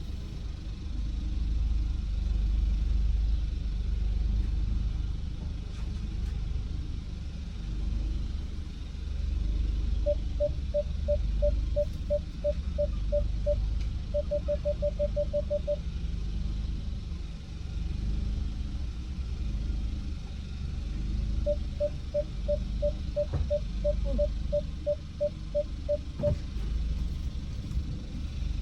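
Car engine running low inside the cabin while a car's parking sensor beeps in short tones at one pitch: a slow series about ten seconds in, quickening to a rapid run a few seconds later as an obstacle comes close, and another slow series later on.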